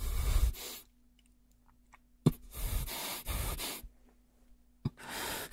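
A man breathing close to the microphone: three slow breaths a couple of seconds apart, with a short click just before the second and third. These are the voice actor's pained breaths right after being bitten on the neck.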